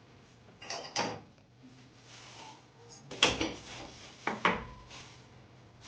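A few sharp knocks and clatters of kitchen things being handled, about a second in and then twice between three and four and a half seconds.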